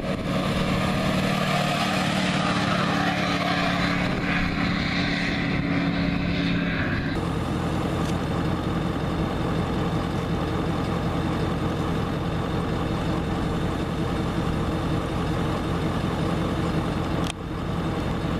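A lifted Ford Super Duty pickup towing a car trailer drives off, its engine and tyres heard steadily. About seven seconds in the sound cuts to the steady road and engine drone heard from inside a moving vehicle.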